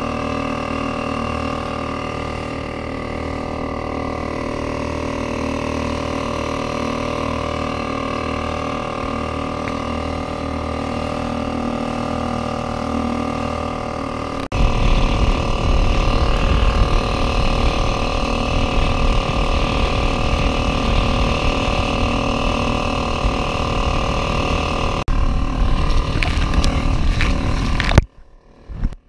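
A kayak's motor running steadily at an even pitch. From about halfway, a heavy low rumble of wind on the microphone joins it.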